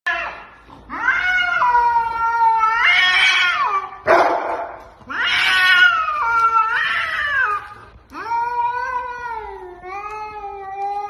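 Cats caterwauling in a fight standoff: long, drawn-out yowls that waver up and down in pitch, three in a row, with a short harsh burst, like a hiss, about four seconds in.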